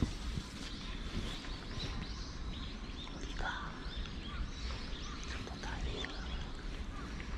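Outdoor background of a steady low rumble with small birds chirping faintly, short scattered calls, one a falling call about three and a half seconds in.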